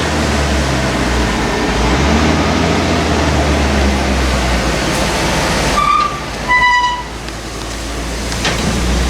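A vehicle engine running steadily with a heavy low rumble, broken about six seconds in by two short horn toots, the second one lower and slightly longer.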